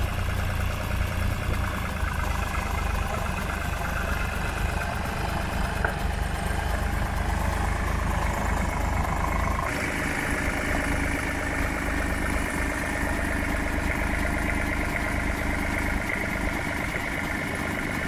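Vintage tractor engine running steadily, with a deep low rumble; the sound changes abruptly about ten seconds in.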